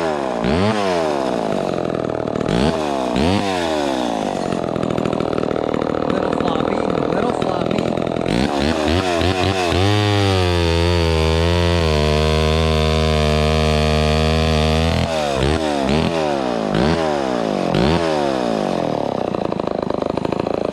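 Vintage Homelite XL12 single-cylinder two-stroke chainsaw engine revved up and down repeatedly, each blip rising and falling in pitch. About ten seconds in it holds a steady speed for around five seconds, then goes back to quick revs.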